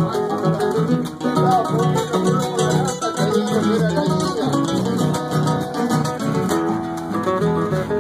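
Several nylon-string classical guitars playing an Argentine gato cuyano together: a plucked melody over a busy accompaniment of notes and chords, going on without a break.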